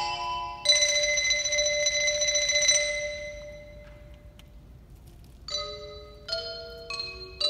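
Xylophone solo struck with mallets. A bright chord rings out under a second in, holds for about two seconds and fades away. After a short pause, single notes pick up again, spaced well apart at first and then coming faster near the end.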